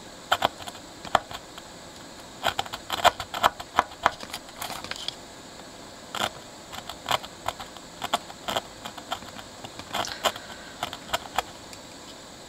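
Blade scraping solder mask off a printed circuit board's copper track, baring it for a solder bridge: irregular short scratches and clicks, some in quick clusters.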